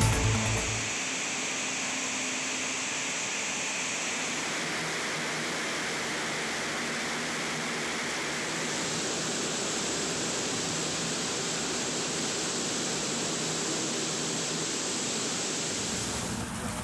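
Steady rushing noise of an LCAC hovercraft's gas turbines and lift fans running, with no clear pitch; the hiss shifts in tone about four seconds in and again about halfway through.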